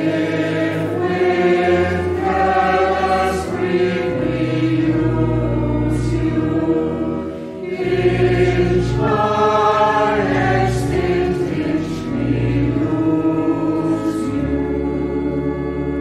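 A group of voices singing a slow hymn together, holding long notes over a sustained low accompaniment.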